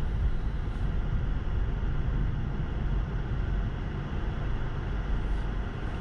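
Car slowing almost to a stop on a snow-packed road: a steady low rumble of engine and tyre noise, heard from inside the cabin, easing off slightly toward the end.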